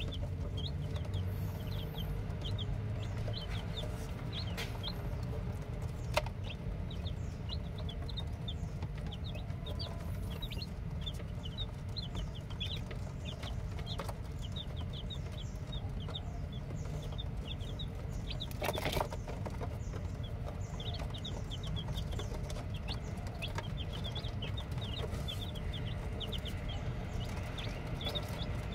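A group of newly hatched chicks peeping, a continuous chorus of short, high peeps over a steady low rumble, with a few sharp clicks and a brief noisy burst about two-thirds of the way through.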